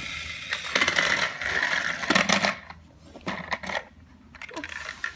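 Toy car rattling and clattering as it rolls across a hardwood floor, dense for about two and a half seconds, then a few scattered clicks and knocks.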